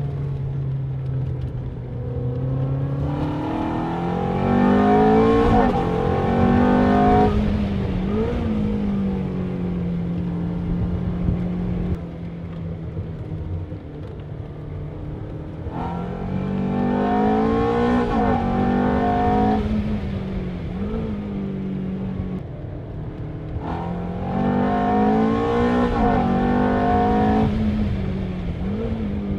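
Ferrari F430's 4.3-litre V8 with an X-pipe exhaust, heard from inside the cabin on track. It accelerates hard three times, its pitch climbing and stepping down at gear changes, and runs steadier and lower between the pulls.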